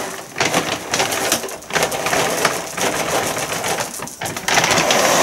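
Dry dog food being poured from a large plastic bag onto a concrete floor: kibble rattling and scattering as it lands, with the bag crinkling.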